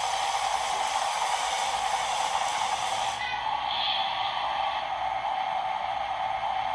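Small electric motor and gears of a battery-powered toy bulldozer running steadily with a hissing whir; the highest part of the hiss drops away about three seconds in.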